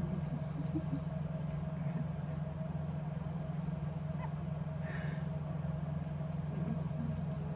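Steady low mechanical hum with a faint constant higher tone, unchanging throughout; a brief faint higher-pitched sound about five seconds in.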